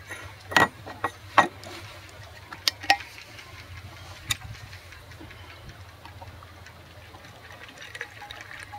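Stainless-steel vacuum flask being handled and opened: a string of sharp clicks and knocks in the first few seconds and another about four seconds in, over a faint steady low hum. Coffee starts to pour from the flask into a metal cup near the end.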